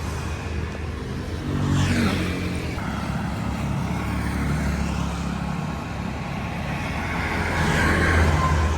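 Street traffic: motor vehicles running past, one passing close about two seconds in and another near the end.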